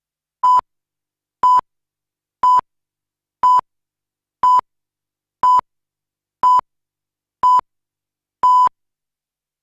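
Broadcast countdown clock beeps: nine short, identical steady-pitched beeps, one each second, with silence between, counting down to the programme start.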